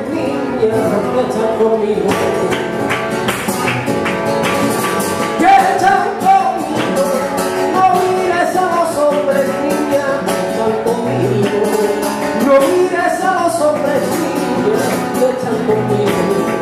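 Live sevillanas music: a singing voice with a wavering, ornamented line over Spanish guitar, with sharp percussive beats keeping a steady rhythm.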